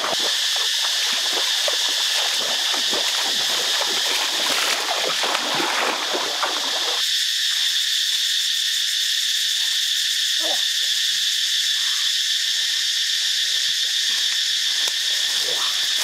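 Steady high-pitched drone of forest insects, with rustling through leaves and brush during the first half.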